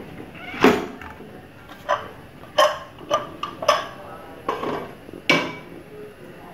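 Aluminium pressure cooker lid being twisted open and lifted off after the pressure has been let out: a string of about seven sharp metal clanks and knocks, each with a short ring.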